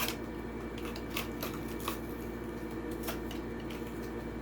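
Plastic blister packaging of a die-cast toy car crinkling, with a few sharp clicks and snaps, as the pack is pulled open by hand. A steady hum runs underneath.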